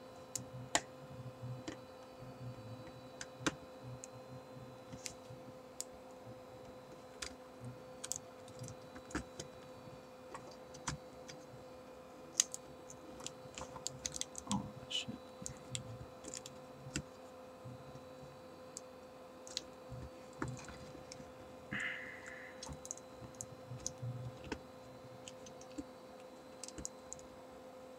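Scattered light clicks and taps at irregular intervals as the opened iPod Color's metal back case and front shell are handled, over a steady faint hum.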